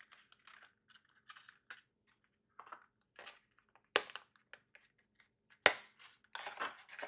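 Hard clear plastic clamshell packaging being handled and pried open to free an M.2 SSD: scattered crinkles and clicks, with sharp snaps about four and six seconds in.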